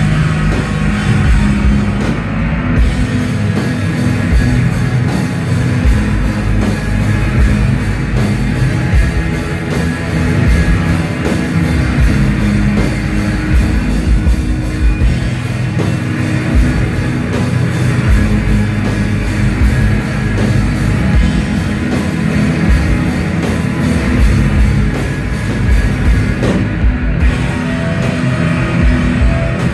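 Instrumental post-rock band playing live: layered electric guitars, bass and a drum kit, loud and unbroken.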